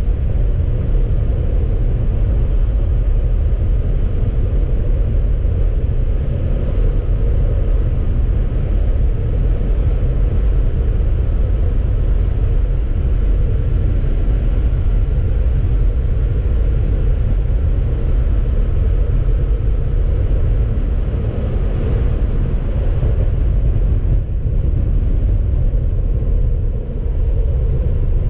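Car driving: a steady low rumble of road and wind noise, with a faint whine that drifts slowly in pitch.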